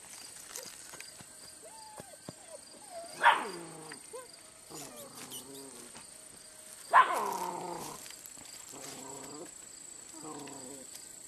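Young German Shepherd puppies play-fighting: two loud barks that fall in pitch, about three and seven seconds in, with short growls between and after them.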